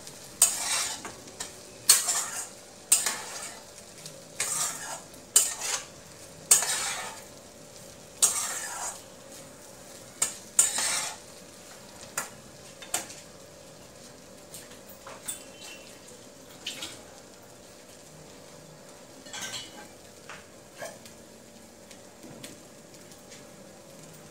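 Metal spoon scraping and stirring rice in a kadai as fried rice is mixed, a stroke about once a second, then fewer and fainter strokes after about eleven seconds.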